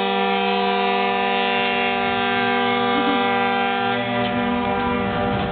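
Diesel locomotive air horn held in one long, steady chord of several tones.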